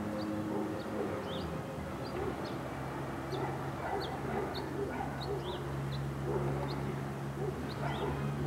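Animal calls: many short, high, falling chirps or yips, a few a second, over a steady low hum.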